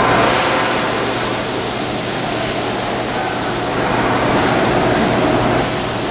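Steady factory-floor noise: a loud, even rushing hiss with a constant low electrical hum beneath it.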